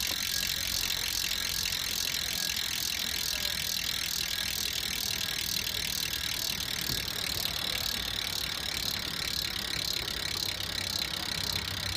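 DT Swiss 350 rear hub on an Envy Classic wheel freewheeling as the rear wheel spins: its ratchet freehub clicks so fast that it sounds as a steady buzz.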